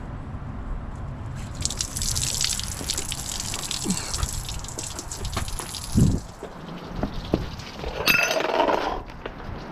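Coolant and flush water gushing out of an LT1 V8 engine block's knock sensor port and splashing on the ground, as the block is drained for a cooling-system flush. There is a thump about six seconds in and another louder noise near the end.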